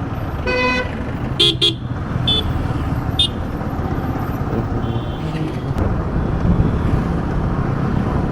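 Motorcycle riding through traffic, with steady engine and road noise. Vehicle horns toot: one short blast about half a second in, a quick double toot a second later, and two more brief toots over the next couple of seconds.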